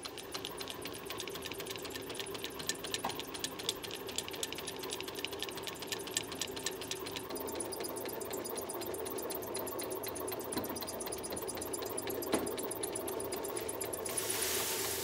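Old belt-driven grain mill running with a fast, even mechanical clatter. Near the end a hiss comes in as grain starts pouring into its hopper.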